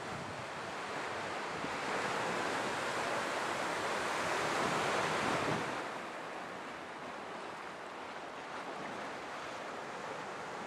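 Sea waves washing in over rocks at the shore. One wave surges louder for a few seconds in the middle, then the wash settles back to a steady surf.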